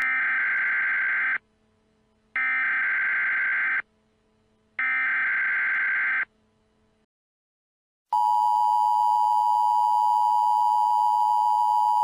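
Emergency Alert System signal: three short bursts of SAME header data screech, about a second apart, then after a brief pause the steady two-tone EAS attention signal starts about eight seconds in and holds.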